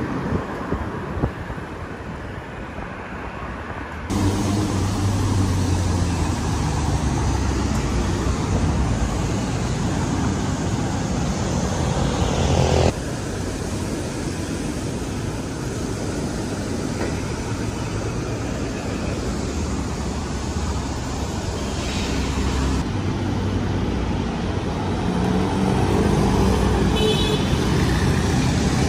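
Street traffic: car engines running and passing by with tyre and road noise. The sound changes abruptly three times.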